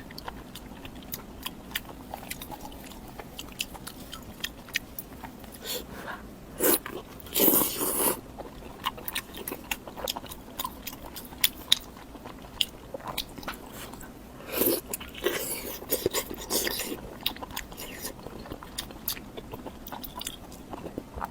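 Close-miked eating: a person chewing and biting food, with many small wet mouth clicks and a few louder bites, the loudest about a third of the way in and again past the halfway mark.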